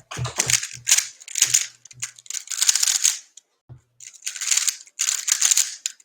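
A 3x3 speed cube being turned in quick spells, its plastic layers scraping and clicking in about seven short rattling bursts.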